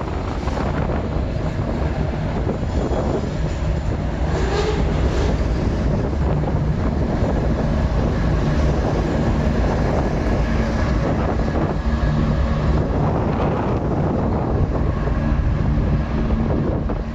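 CN freight train's diesel-electric locomotives passing close by, engines running with a steady low drone over the noise of rolling wheels on rail. Wind buffets the microphone.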